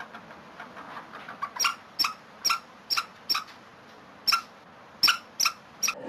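Short, sharp, clipped chirps, about ten of them at roughly two a second, from a small animal, over faint ticking of a fox squirrel nibbling food in its paws.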